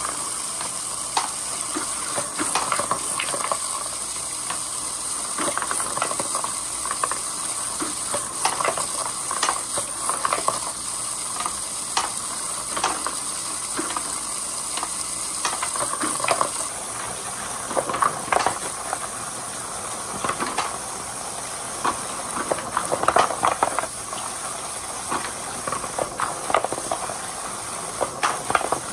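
Water rushing steadily down a run of rain gutters, with wooden balls knocking and splashing at irregular moments as they roll and drop through the channels.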